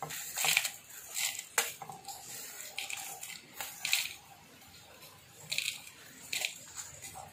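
Dry-roasted whole spices (coriander seeds, dried red chillies, peppercorns) sliding and pushed off a steel plate into a steel mixer-grinder jar, in a run of short, irregular dry rattles and scrapes.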